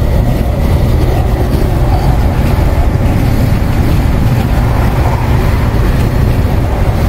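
Inside a semi-truck day cab at highway speed: a steady, loud low rumble of engine and road noise, with strong gusting wind buffeting the cab.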